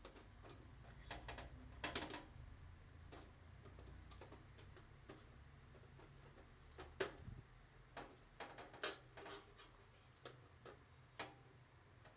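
Faint, irregular small clicks and ticks of a Phillips screwdriver working the screws out of a desktop PC case's side panel, a few sharper clicks among them, over a low hum.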